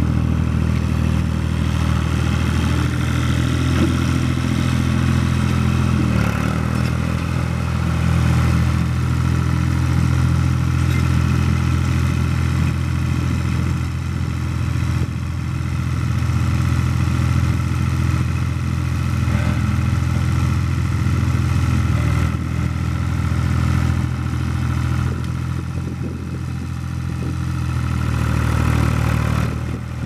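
Long 510 farm tractor's diesel engine running steadily as the tractor is driven slowly around on gravel, the engine note rising and falling only slightly.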